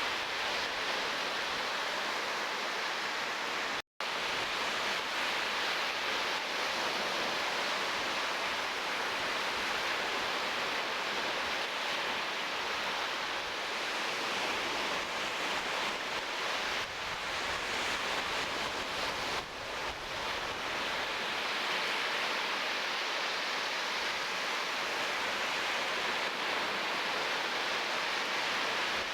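Steady rushing noise of surf on a shore, with a brief cut to silence about four seconds in.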